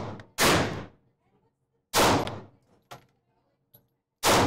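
Gunshots at an indoor shooting range: three sharp reports about a second and a half to two and a half seconds apart, each followed by a short echoing decay. Faint small clicks fall between the later shots.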